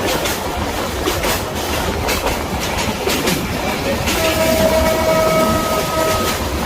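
Train running along the line, its wheels clacking over the rail joints with a steady rumble. About four seconds in, a train horn sounds one steady chord for about two seconds.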